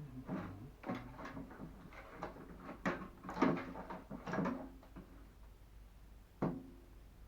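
Knocks and clatters of microwave oven parts being handled during disassembly, some of them ringing briefly, with a last sharp knock near the end.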